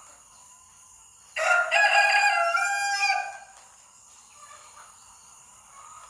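A rooster crows once, a single call of about two seconds starting a little over a second in.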